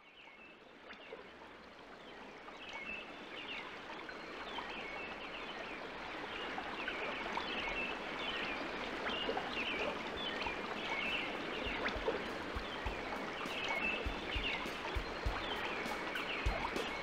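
Steady rush of running water with short high chirps repeating over it, fading up gradually from silence; soft low thumps and clicks come in during the second half.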